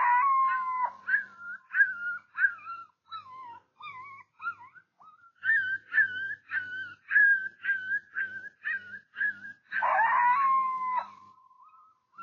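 Coyote howls and yips. There is a long falling howl at the start and another near ten seconds, with a run of quick, evenly spaced yips and whimpers in between.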